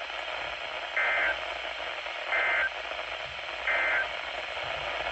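Three short bursts of Emergency Alert System end-of-message data tones, each a fraction of a second of warbling two-tone code, about a second and a third apart, over the steady hiss of a weather radio receiver. They signal the end of the alert message.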